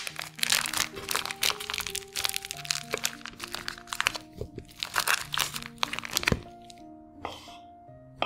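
Plastic hot dog packaging crinkling and crackling as it is torn open and the sausages are pulled out, a dense run of crackles that dies away after about six seconds, over soft background music.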